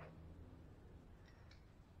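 Near silence: a faint steady low hum, with two faint small clicks about a second and a half in.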